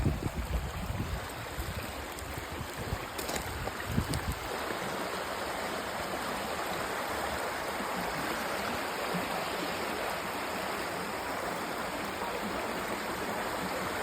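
Small creek running steadily over rocks, an even rushing of water. There is some low rumbling in the first few seconds.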